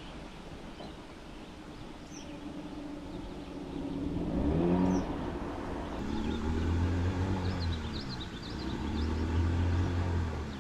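An engine revving up and easing off three times, about halfway in, again near two-thirds and near the end, with birds chirping in the background.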